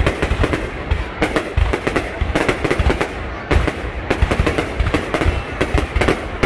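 Fireworks going off in a dense, irregular barrage of bangs and crackles, several a second, with deep booms among them.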